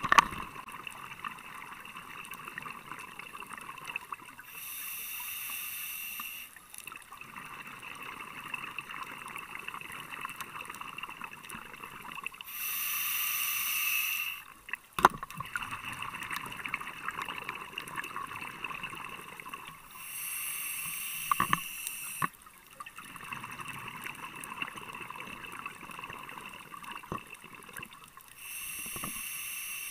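A scuba diver breathing through a regulator, each exhalation a burst of bubbling about two seconds long, four times at roughly eight-second intervals. Between breaths there is a steady underwater crackle with scattered clicks.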